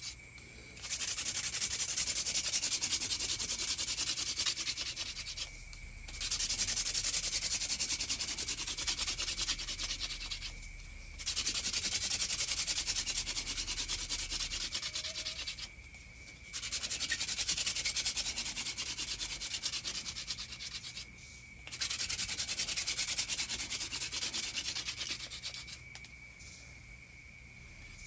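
Wooden hand-drill spindle spun between the palms against a wooden fireboard to make fire by friction: a dry, rasping rub. It comes in five runs of about four to five seconds each, separated by short pauses, and stops a couple of seconds before the end.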